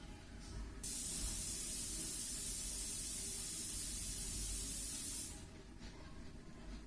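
A steady, high-pitched hiss that starts abruptly about a second in and cuts off after about four and a half seconds.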